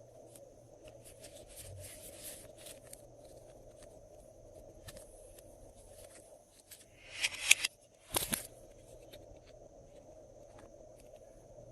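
Glossy slime being worked by hand, making small sticky clicks and crackles, with a louder squelch about seven seconds in and a sharp pop just after eight seconds.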